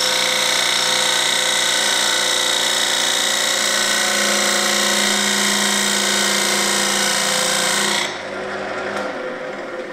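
Parting tool cutting a recess into a camphor laurel bowl spinning on a wood lathe: a loud, steady cut that stops abruptly about eight seconds in. After that only a quieter sound runs on and fades.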